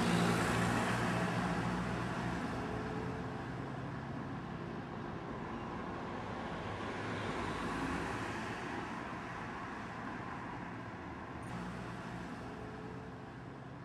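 Street traffic: a car passes close at the start and fades away, and another swells past about eight seconds in.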